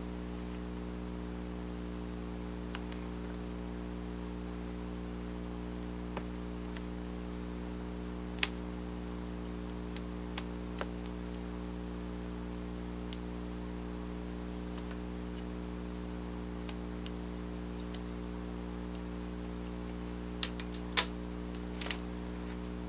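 Steady low hum, with scattered faint clicks and taps as hands handle and press pieces of craft foam on a cutting mat; a short cluster of louder taps comes near the end.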